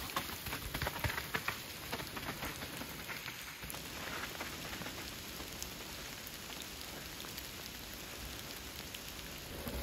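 Steady rain falling on the forest, an even hiss, with a few faint knocks in the first second or two.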